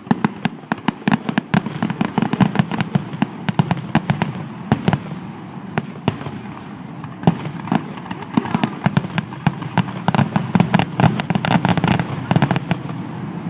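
Fireworks finale: a dense barrage of bursts, many sharp bangs in quick succession, overlapping into a continuous rumble.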